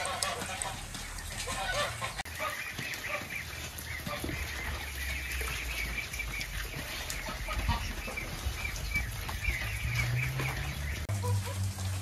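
Poultry calling in short, repeated notes. A low rumble comes in near the end.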